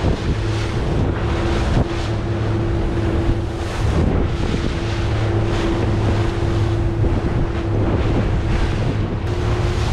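Twin Vee 310 catamaran under way: its twin outboard engines running at a steady pitch, with wind blowing on the microphone and water washing along the hull.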